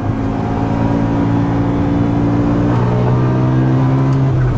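G-Power Hurricane RR BMW M5's supercharged V10 under hard acceleration, its note climbing steadily, dropping at an upshift about three seconds in, then climbing again.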